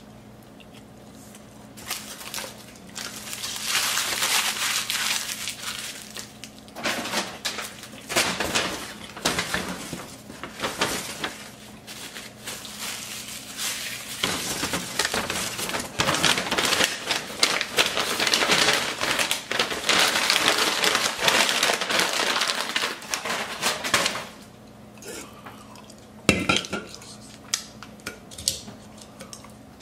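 Brown paper takeout bag being crumpled and handled: dense crinkling and rustling that starts about two seconds in and stops a few seconds before the end, followed by a few scattered knocks.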